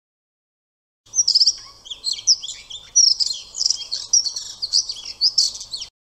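Scaly-breasted munias calling: a busy chatter of short, high, thin chirps and whistled notes. It starts about a second in and cuts off suddenly just before the end.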